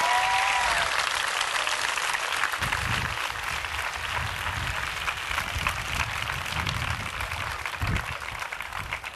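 A large crowd applauding, the clapping slowly dying away toward the end.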